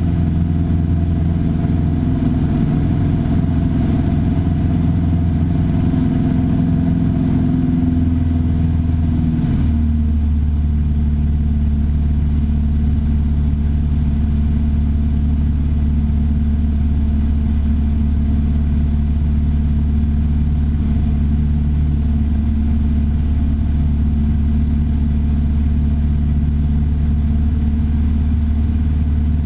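Piper Warrior III's four-cylinder Lycoming O-320 engine and propeller running steadily; about ten seconds in the engine note shifts lower and stays there.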